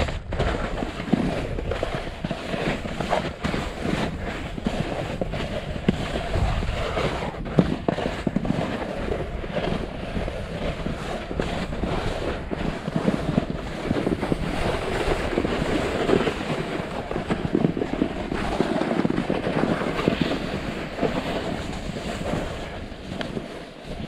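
Snowboard edges scraping over snow and ice during a run, heard through a GoPro's foam windscreen: a steady rough rush with many small clicks and knocks. It fades near the end.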